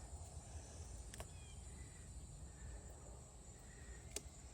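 Faint outdoor background with a low, steady rumble, two sharp clicks about three seconds apart, and a faint short bird chirp about a second in.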